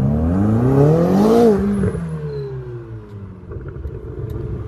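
Ferrari sports car accelerating hard, its engine note rising steadily in pitch for about a second and a half, then dropping and falling away as the car passes.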